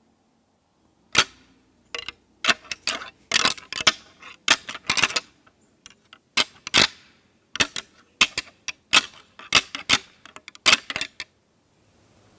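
Deer antlers clashed and ground together in an irregular run of sharp clacks lasting about ten seconds: a rattling sequence imitating two whitetail bucks fighting during the rut.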